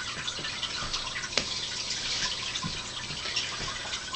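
Fire patty fire starter burning with a soft steady hiss and scattered faint crackles, one sharper pop about a second and a half in.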